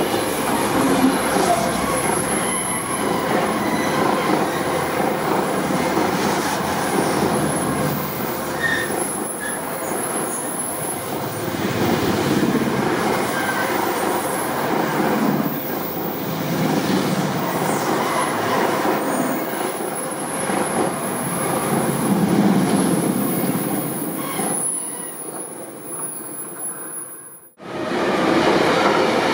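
Electric-hauled freight train passing close by: a BLS Cargo locomotive followed by a long string of low-floor rolling-highway wagons carrying lorries, a steady rumble of wheels on rails with a thin high wheel squeal that comes and goes. Near the end, after a sudden break, a second freight train, a container train, is heard passing.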